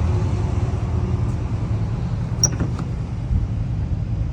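Motor vehicle engine running steadily with a low rumble, and a single sharp click about halfway through.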